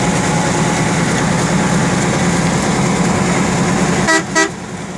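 Bus engine and cabin noise heard from inside a moving bus as a steady low drone. About four seconds in, a vehicle horn gives two short toots and the drone drops away.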